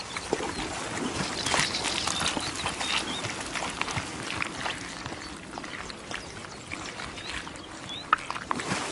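Wild boar wallowing in a muddy puddle: irregular wet squelching and splashing of mud and water.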